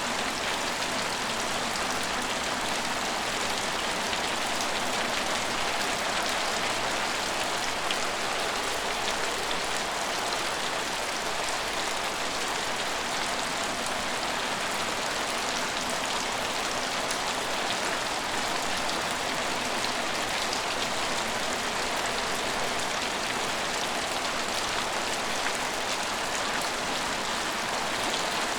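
Steady rain falling: an even hiss of drops that holds constant without let-up.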